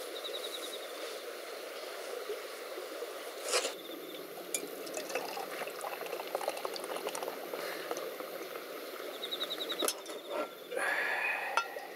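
Beer poured from a can into a mug, the liquid splashing and foaming as it fills, with a sharp click about three and a half seconds in. A high pulsing insect-like trill is heard faintly near the start and again near the end.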